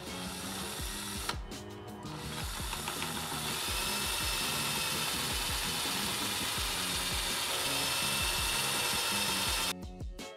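Power drill running in reverse, its extractor bit drilling a starter hole into a broken cylinder head bolt. The drill runs steadily from about two seconds in and stops abruptly near the end. Background music plays underneath.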